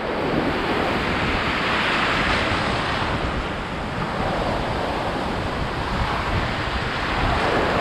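Ocean surf washing and breaking close around the microphone, with some wind on the mic. The wash swells about two seconds in, eases a little in the middle and builds again near the end.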